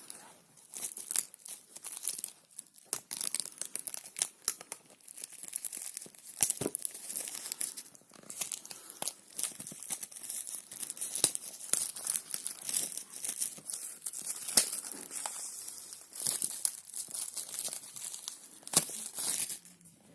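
Plastic packaging being handled during a smartphone unboxing: continuous crinkling and tearing of wrap or film, with many irregular sharp clicks and taps.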